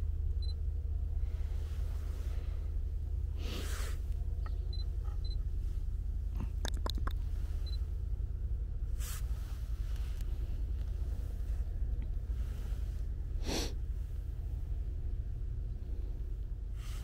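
A steady low rumble, over which a camera gives a few short high focus beeps and a quick run of shutter clicks about seven seconds in. Three brief rustles of handling come in between.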